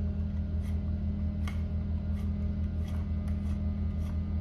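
Light ticks and clicks of a 3/16 hex key turning the pistol grip screw out of an AR-9 carbine, several spaced over a few seconds. A steady low hum runs underneath.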